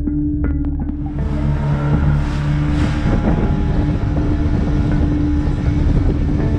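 Background music with a steady held note, joined about a second in by a loud, steady rushing noise of water and wind as the camera sits at the sea surface.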